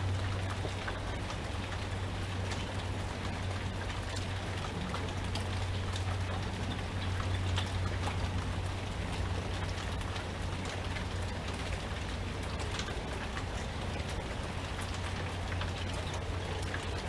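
Steady rain falling, with many individual drops ticking sharply on a hard surface, over a constant low hum.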